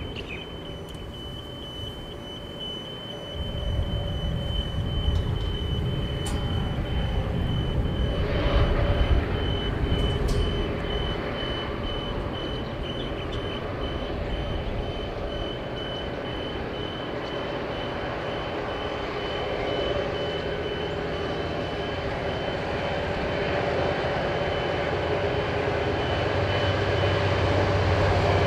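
Diesel-electric locomotives hauling a loaded grain freight train approach from a distance, their low engine rumble coming up about three seconds in and building toward the end. A thin, steady high tone runs throughout.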